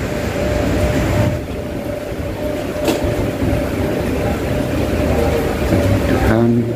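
Steady mechanical rumble with a constant whine running through it, heard from inside an airport jet bridge at a parked airliner, from gate machinery or the aircraft. There is a single short click about three seconds in.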